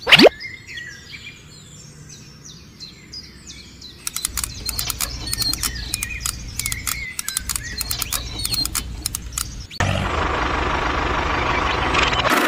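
A quick falling whoosh at the start, then small birds chirping throughout, with a run of light clicks and taps from about four seconds in as the toy plough implement is pinned to the tractor's hitch by hand. Near the end a steady hiss takes over.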